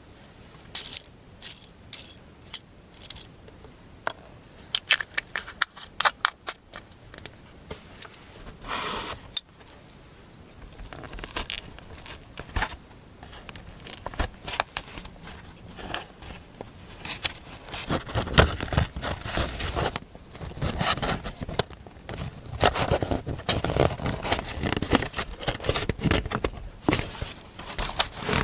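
Hands working with paper and stationery on a desk for a collage journal page. For the first several seconds there are many short, sharp clicks and taps. After that come denser, continuous rustling and scraping sounds.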